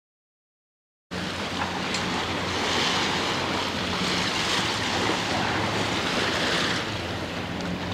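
Motorboat underway on open sea: a steady engine drone under rushing wind and water, cutting in abruptly about a second in.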